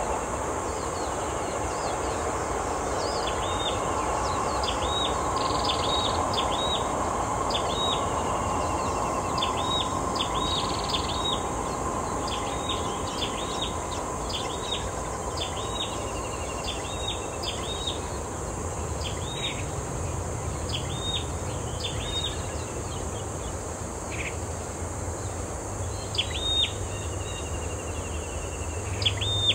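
A small bird chirping again and again, a short high note about once a second in loose runs, over a steady high-pitched insect drone and outdoor background hiss.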